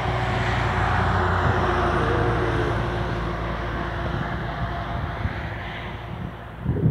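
Highway traffic passing: a truck's engine and tyre noise rushes by, peaking about a second in and then slowly fading away. Wind buffets the microphone right at the end.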